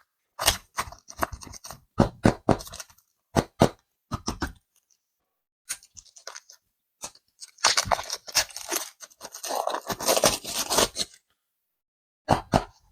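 Crinkling, crackling and scraping of clay packaging being handled and opened, in short bursts with sharp clicks and silent gaps between them. The longest stretch comes about two thirds of the way through.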